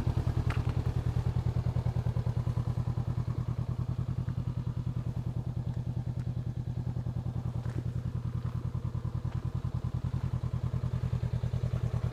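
Honda CB500X's 471 cc parallel-twin engine idling steadily through its stock exhaust, an even, rapid pulsing note with no revving.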